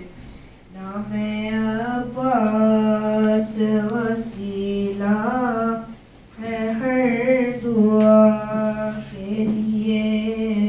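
A boy's voice chanting a noha, a sung mourning recitation, into a handheld microphone, in long held phrases that bend in pitch, with a short pause about six seconds in.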